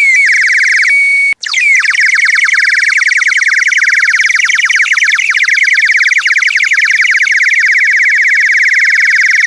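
Water-filled plastic bird whistle being blown, giving a loud, high warbling trill that imitates birdsong. The trill breaks off briefly about a second in, then runs on unbroken.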